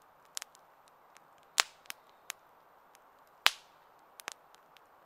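Campfire wood crackling and popping: scattered sharp snaps, with two loud pops, one about a second and a half in and one about three and a half seconds in.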